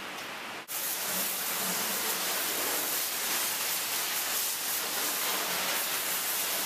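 Water spraying from a garden hose onto a cow's hoof and the floor of a hoof-trimming crush, a steady hiss that starts abruptly about half a second in.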